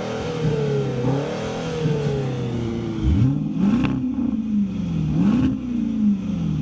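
Performance SUV engine being revved repeatedly, its pitch climbing and falling with each blip of the throttle. About three seconds in, the sound changes to a deeper engine revving in slower swells, with a couple of sharp cracks from the exhaust.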